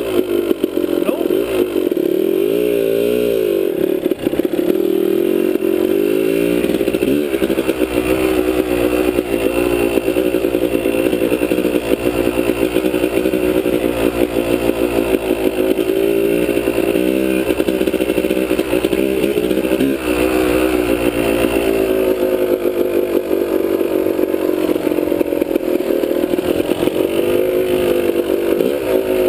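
Dirt bike engine revving up and down while being ridden, its pitch rising and falling again and again with the throttle and gear changes.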